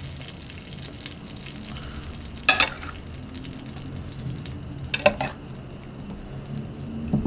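Melted butter sizzling and crackling steadily in a flat griddle pan on the lowest heat. Twice, at about two and a half and five seconds in, a metal spatula clatters sharply against the dishes.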